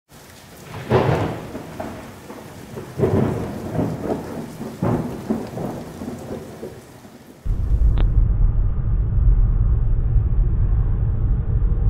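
Thunder and rain under the channel intro, swelling to loud claps about one, three and five seconds in. About seven and a half seconds in it cuts abruptly to the steady low rumble of a car's engine and tyres, heard from inside the cabin.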